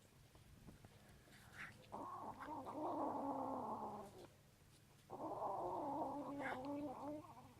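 A kitten giving two long, drawn-out meows, each about two seconds, with a short pause between them.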